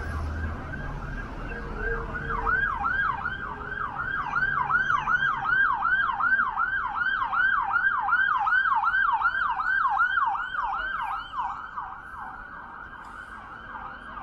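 Emergency vehicle siren on a fast yelp, about three quick up-and-down sweeps a second. It grows louder for several seconds, then fades out near the end.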